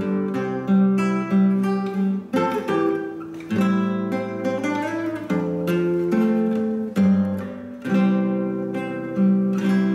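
Background music: an acoustic guitar playing chords, plucked and strummed in a steady rhythm.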